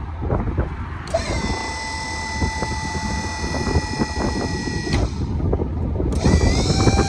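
A service truck's diesel engine runs under a high-pitched whine from powered equipment on the truck. The whine starts about a second in, holds steady, cuts off suddenly after about four seconds, then comes back rising near the end.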